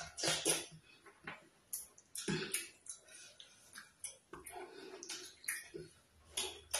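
Close mouth sounds of eating sticky cassava starch with black soup by hand: wet chewing and lip smacks in irregular short bursts.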